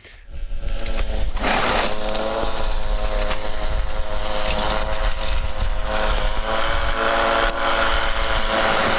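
Snowblower's small gasoline engine running steadily, coming in just after the start.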